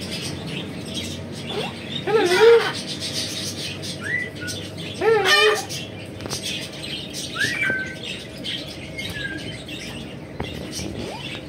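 Green parrot giving two loud, wavering calls, about two and five seconds in, with several short rising whistle-chirps in between.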